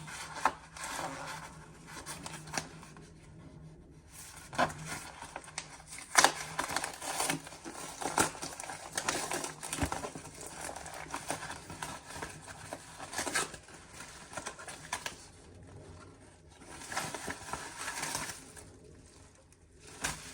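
A package being opened by hand: irregular crinkling, rustling and tearing of the packaging, with sharp snaps and clicks, pausing briefly a few times.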